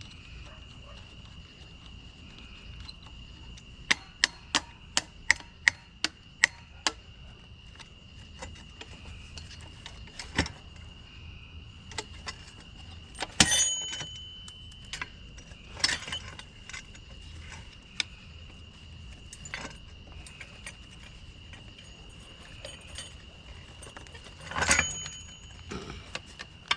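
Hand tools and metal parts clinking and knocking while a cast-metal piece is taken apart and its plate worked loose: a quick run of about eight sharp clicks, then scattered single clanks. A steady high drone of night insects runs underneath.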